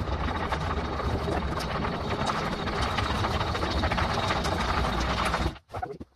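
Ball mill running as it grinds aluminium foil into powder: the jar turning on its rollers, the grinding media tumbling inside in a dense, steady clatter over a low motor hum. It stops abruptly about five and a half seconds in, and a couple of short knocks follow.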